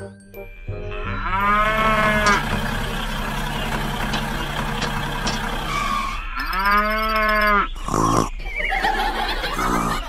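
Cow mooing twice, each moo about a second long, rising and then falling in pitch: once soon after the start and once past the middle.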